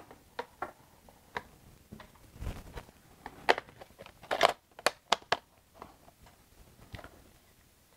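Film backing paper rustling and crinkling, with small clicks and taps, as a roll of 120 film is worked by hand into a 1907 Panoram-Kodak camera. The sharpest crinkles and taps cluster from about three and a half to five seconds in.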